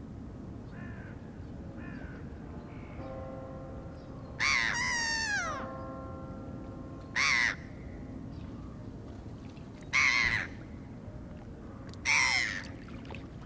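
Black-headed gulls calling: harsh, hoarse cries. Three faint ones come in the first few seconds, then four loud ones. The first loud cry, about four and a half seconds in, is the longest and falls in pitch.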